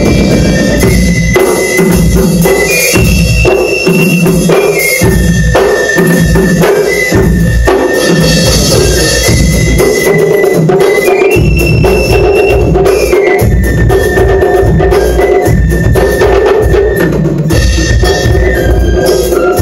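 School cadet band playing live: trumpets and other brass hold a melody of long, stepping notes over a steady beat of bass drum and snare.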